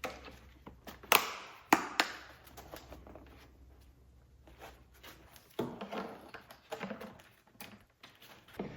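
Plastic power seat switch being pressed and fitted into the plastic seat side trim panel by hand: three sharp clicks and knocks about a second and two seconds in, then quieter handling and rubbing of the plastic parts.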